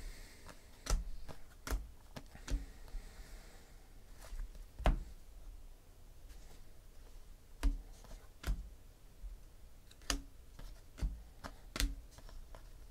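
2017 Panini Classics football cards being handled and sorted, giving about ten irregular sharp taps and flicks as cards are squared up and set down in stacks on a tabletop.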